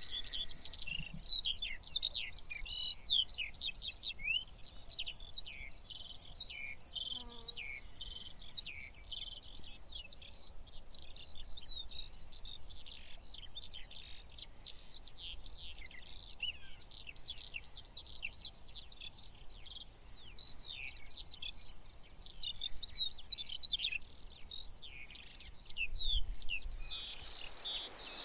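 A dense chorus of songbirds: many overlapping quick chirps and short falling notes throughout, with a steady hiss coming up near the end.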